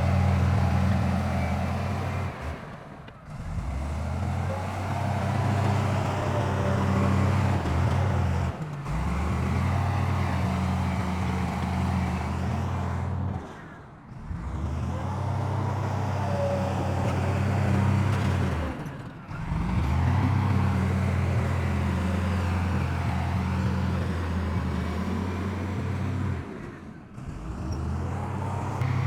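Heavy diesel engines of earthmoving machines, bulldozers and dump trucks, running steadily with a deep, even rumble. The sound drops out briefly about every five to six seconds, then resumes.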